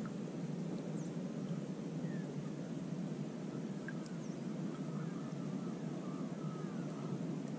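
A steady low rumble of outdoor background noise, with faint, high bird chirps scattered through it and a string of short chirps from about four to seven seconds in.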